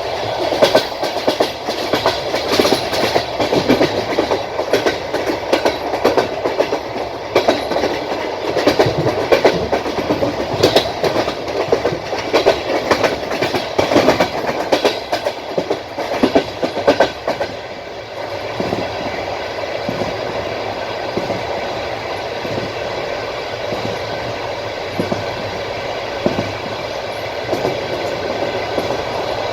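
Passenger train wheels clicking over rail joints as the train runs steadily. The clicks come thick for the first half, then thin out to a smoother rumble with only the odd click.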